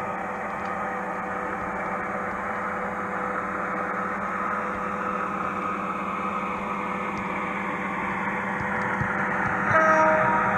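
Model locomotive running along the track, its wheels and motor making a steady rumble that slowly grows louder as it comes nearer. Near the end comes a short horn blast.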